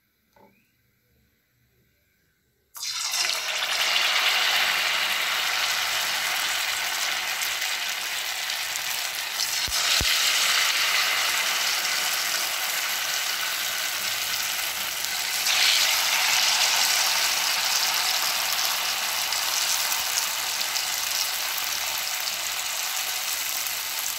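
Batter-coated tapioca balls deep-frying in hot oil: a loud, steady sizzle that starts suddenly a few seconds in and swells slightly twice.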